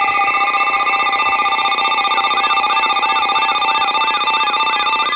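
Emergency alert tones before a weather radio warning: a steady attention tone layered with alternating beeps, joined about two seconds in by a quick, repeating up-and-down sweep.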